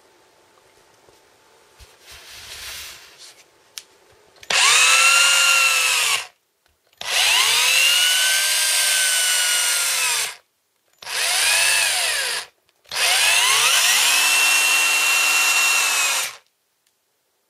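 Bosch GBH24VSR cordless hammer drill running free with a masonry bit, triggered four times. Each run winds up, holds at a steady whine and winds down. The runs are at differing speeds, and the third is the shortest.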